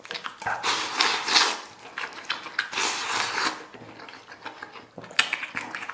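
A person slurping long strands of spicy food, shredded tripe and omasum, from a bowl held to the mouth: two long slurps of about a second each, then quieter chewing with short clicks near the end.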